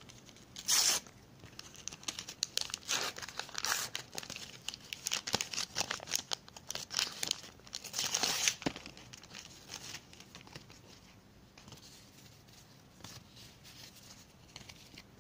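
An NBA sticker pack wrapper torn open and crinkled by hand: a run of tearing and crackling rustles over the first ten seconds, loudest about a second in and again near eight seconds, then fainter handling to the end.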